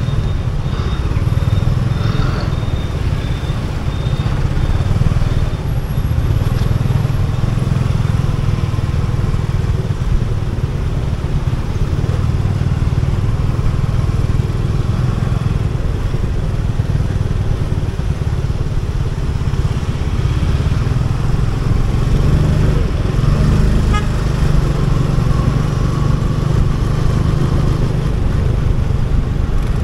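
Motorcycle running steadily as it is ridden, a continuous low rumble.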